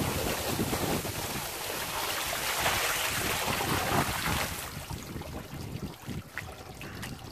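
Water poured from a bucket splashing onto a fibreglass cockpit sole, rinsing away lichen mud. The rush stops about four and a half seconds in and dies down to a softer wash.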